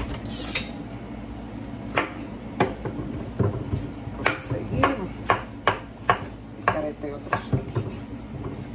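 Kitchen knife slicing a zucchini into rounds on a wooden cutting board, each cut ending in a sharp tap of the blade on the board. About ten taps at an uneven pace, starting about two seconds in.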